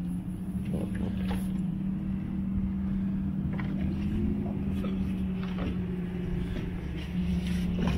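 Motorboat engine running with a steady drone; about seven seconds in it gets a little louder and its pitch starts to rise.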